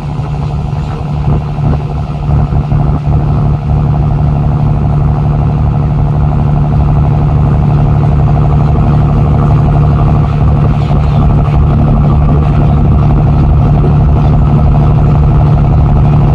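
Tugboat's diesel engine running steadily under load while towing, a loud constant drone that steadies and grows slightly louder a few seconds in.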